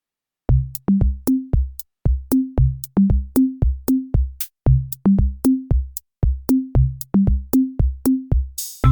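Electronic background music: a drum-machine beat of low kick drums and sharp clicks with short bass notes, starting about half a second in, with a brief hissing swell near the end before the music fills out.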